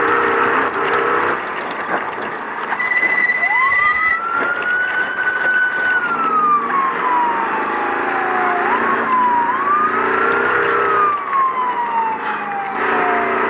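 Ford Ranger desert race truck running, heard from inside the cab over a rushing haze of road noise. A high siren-like whine climbs, holds and then slowly falls in pitch, twice, while the engine note comes and goes underneath.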